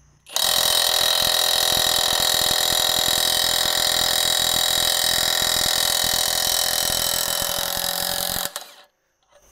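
Hercules 20V brushless 1/2-inch high torque impact wrench (1,200 ft-lb) hammering steadily for about eight seconds, motor whine over rapid impacts, then stopping suddenly. It is breaking loose a nut torqued to about 750 foot-pounds, and on this run it takes unusually long: "that took quite a while."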